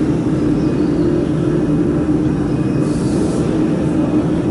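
Steady machinery hum with a constant low drone, and a brief faint hiss about three seconds in.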